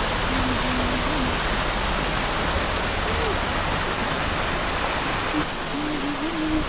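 Waterfall cascading down a rock face: a steady, even rush of falling and splashing water.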